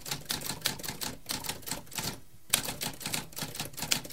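Typewriter keys struck in a quick run of sharp clacks. There is a short pause about two seconds in, then a hard strike and the typing resumes.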